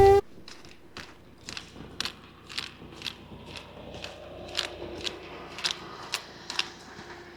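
Footsteps, about two steps a second, each a short crisp crunch.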